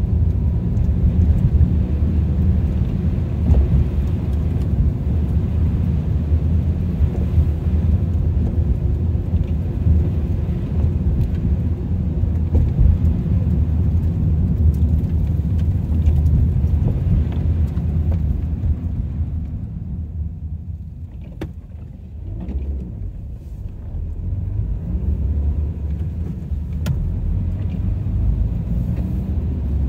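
Car driving, with a steady low rumble of road and engine noise that eases off about twenty seconds in and builds again a few seconds later.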